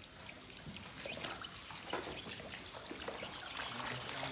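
Pool water splashing and trickling as crocodiles shift in and out of it, with scattered small irregular splashes and knocks.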